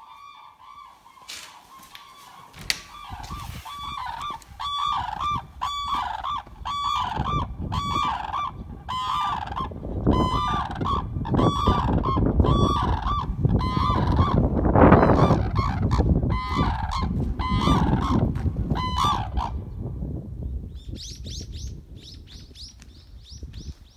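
Red-crowned cranes calling: a long run of repeated trumpeting calls that stops about twenty seconds in, over a low rumbling noise. Near the end a higher, faster series of chattering calls follows.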